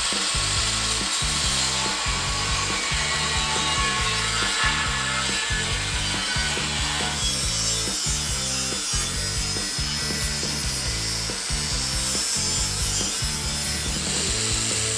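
Power tools cutting and grinding quarter-inch steel plate, a steady harsh hiss that gets brighter about seven seconds in, with an angle grinder's grinding near the end. Background music with a steady bass beat runs underneath.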